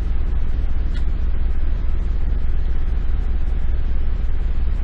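Steady low rumble with an even hiss over it, unchanging throughout.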